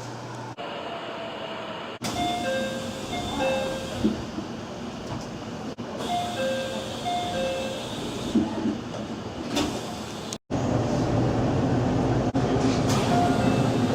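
Door chime of an early-build JR Central 313 series electric train: a short electronic chime of alternating high and low notes, sounding about two seconds in and again about four seconds later, with the door's knocks after it. After a sudden cut about ten seconds in, a later-build 313 set's steady, louder running hum, with its own door chime starting near the end.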